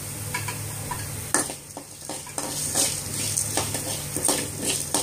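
A metal ladle stirs and scrapes urad dal around a metal pan, about two strokes a second, with a sharp knock against the pan about a second in. A steady light sizzle runs underneath as the dal fries toward golden brown.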